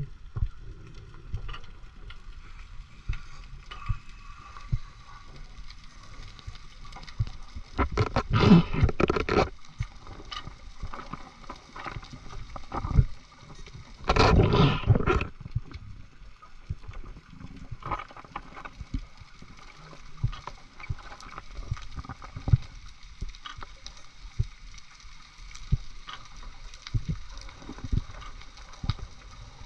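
Water noise on a camera in the sea: a steady scatter of faint clicks and crackles over a low rumble, with two louder rushing gushes about eight and fourteen seconds in.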